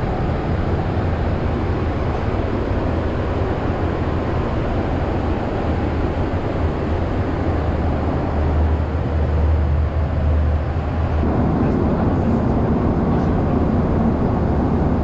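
Steady cabin noise inside a Boeing 777-300ER: an even rush of engine and air noise with a strong low hum. About eleven seconds in, the tone shifts slightly deeper.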